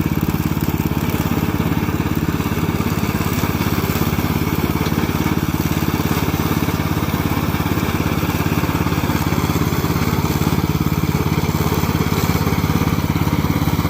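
Engine of a remote-controlled lawn mower running steadily at a constant speed, with an even low rumble.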